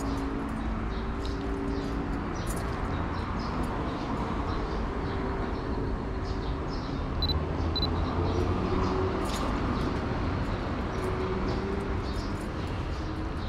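Steady street ambience of distant traffic hum, with scattered light clicks from the mirrorless camera being handled and its shutter firing. Two short high chirps come about halfway through.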